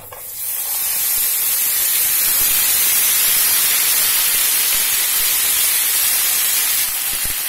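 Raw potato slices dropped into hot sunflower oil in a frying pan, sizzling loudly. The hiss starts suddenly, swells within about a second, then holds steady.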